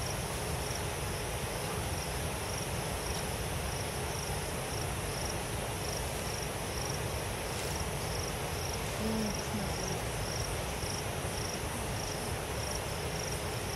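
An insect chirping in a steady rhythm, about two short high chirps a second, over an even background hiss and low rumble.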